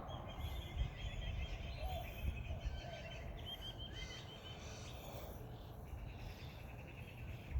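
Morning songbirds chirping, with several rapid runs of short repeated notes and trills, over a steady low rumble.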